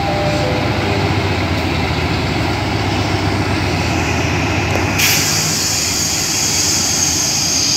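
GE diesel-electric locomotive GEA 4530 idling with a steady low rumble at the head of a standing passenger train. About five seconds in, a steady hiss starts suddenly and continues over the engine.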